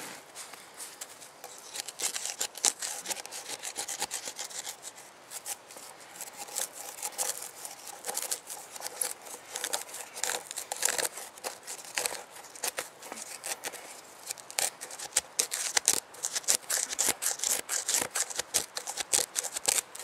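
A wooden stick scraping charred wood out of a fire-hollowed wooden bowl: repeated scratchy, rasping strokes that come faster and closer together in the second half.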